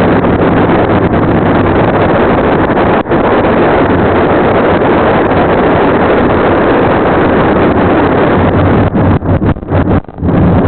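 Kawasaki Vulcan chopper's engine running at road speed, mixed with heavy wind buffeting on the microphone. Near the end the noise breaks up in short dips as the bike slows and turns off the road.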